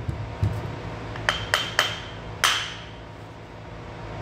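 Club hammer striking a steel front axle shaft to knock it apart from its CV joint: a couple of dull knocks, then four sharp metallic clanks with a ringing tone, three in quick succession a little over a second in and a louder one about a second later.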